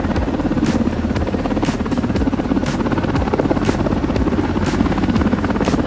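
Helicopter flying past, its rotor blades chopping in a fast, steady pulse.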